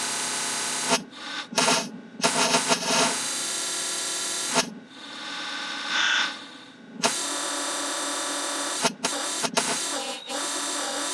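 Slowed, time-stretched soundtrack of a children's TV episode: drawn-out, smeared tones that shift abruptly several times.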